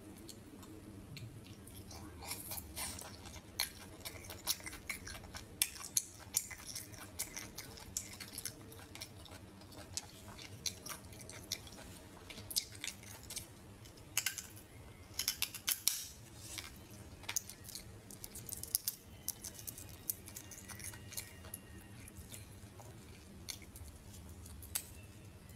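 Mouth sounds of eating cooked shellfish from the shell: irregular wet clicks and smacks as the meat is sucked out and chewed.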